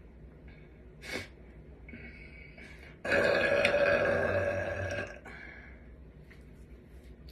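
A girl's long, loud burp, starting suddenly about three seconds in and lasting about two seconds.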